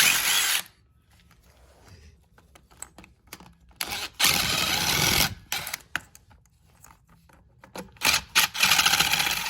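A power tool with a 12 mm socket runs in three bursts of about a second each, at the start, about four seconds in and near the end, spinning out the bolts that hold a Honda K24 engine's AC compressor. Light clicks of tool and metal come in between the bursts.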